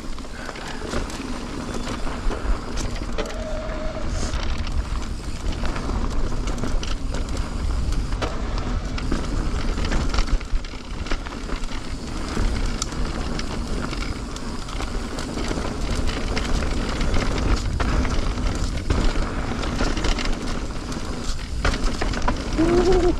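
Full-suspension mountain bike rolling fast down a dirt trail: tyres crunching over dirt and stones, with frequent clatters and knocks from the bike over bumps, under a heavy rumble of wind on the microphone.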